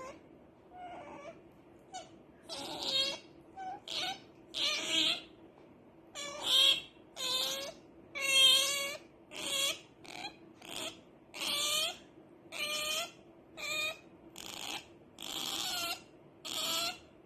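A pet otter calling over and over, about one short high-pitched call a second, each one bending in pitch. It is the fussing of a sleepy otter that wants to sleep.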